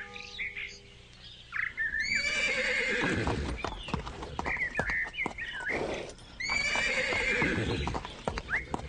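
A horse whinnying twice, about two seconds in and again about six and a half seconds in, with hooves clopping between the two calls. Small birds chirp now and then throughout.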